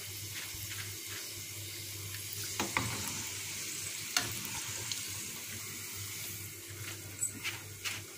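Hot oil sizzling steadily in a frying pan where sliced onions have just been deep-fried golden and crisp, with a few light clicks and knocks.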